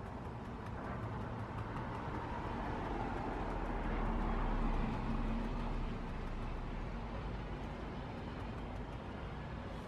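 Steady rumbling background noise that builds to its loudest about halfway through and then eases off.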